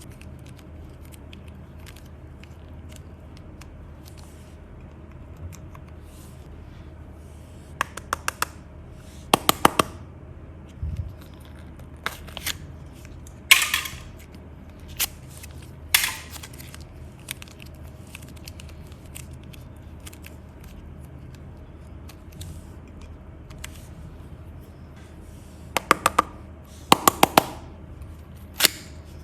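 Slime being handled: several short clusters of sharp clicks and pops over a steady low hum, with long stretches of little else between them.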